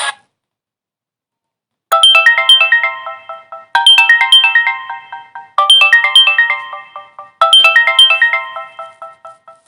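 Samsung Wave II GT-S8530 ringtone: a short melody of quick chiming notes that ring and fade. It starts after about two seconds of silence and repeats four times.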